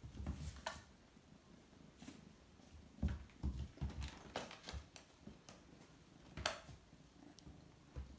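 A Bengal kitten's paws scampering and pouncing on a hardwood floor while it plays with a wand toy: scattered soft thumps and sharp taps and clicks at irregular moments, the loudest near the start, around three seconds in and about six and a half seconds in.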